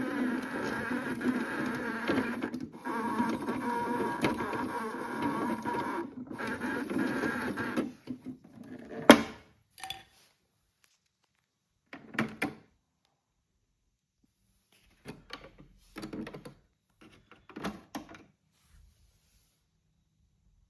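Battery motor of a Theo Klein toy AEG Electrolux Lavamat washing machine buzzing as it turns the drum, with two brief breaks, stopping about eight seconds in. A sharp click follows, then a few short plastic knocks.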